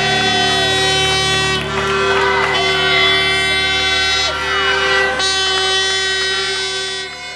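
Background music with loud, sustained chords that shift at a couple of points.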